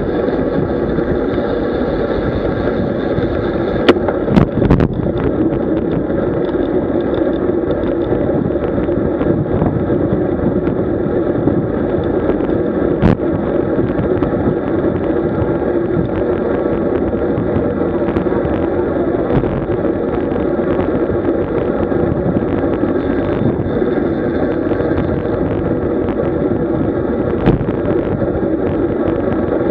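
Wind on the microphone and road rumble while riding a road bicycle, a loud, steady noise. A few sharp knocks come about 4 seconds and 13 seconds in.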